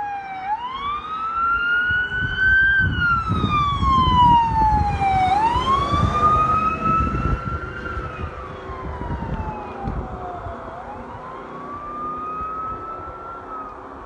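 Sentry 20V2T electromechanical outdoor warning siren sounding short alerts for a fire call: its pitch winds up, then falls away as it coasts down, three times in a row, the third rise weaker than the first two.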